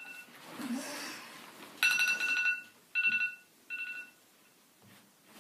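Smartphone alarm ringing in repeated bursts of a two-pitch beep that stop a little after four seconds in, when the phone is touched; a soft rustle of bedding comes between the first bursts.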